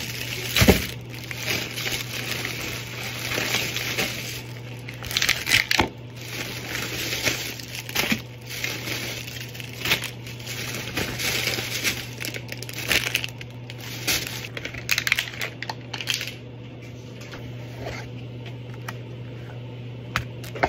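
Clear plastic grocery bag rustling and crinkling in irregular bursts as groceries are taken out of it, with a few sharp knocks of items being handled.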